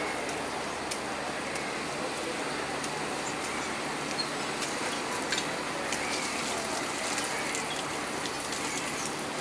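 Steady hissing noise with a low hum from a passenger train at a station platform, with occasional light clicks and faint distant voices.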